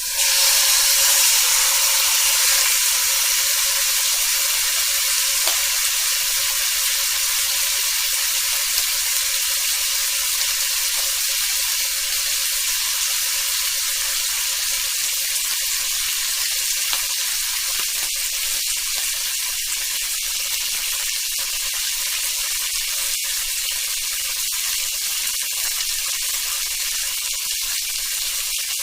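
Meat sizzling on a hot grill: a steady hiss of searing with scattered small pops and crackles of fat. It starts abruptly and eases off slightly over time.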